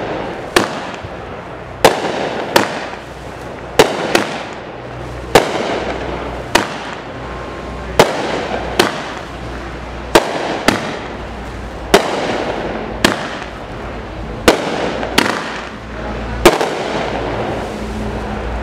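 Consumer 200-gram fireworks cake (Dominator Silken Sky) firing its shots in sequence: a string of about sixteen sharp reports, roughly one a second, with a continuous hiss and crackle between them.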